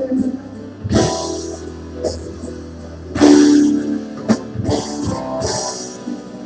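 Instrumental intro of a worship song: guitar over a drum kit, with cymbal crashes every second or two.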